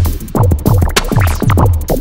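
Background electronic music: a steady drum-machine beat of deep bass kicks that drop in pitch, with sharp snare-like hits over them.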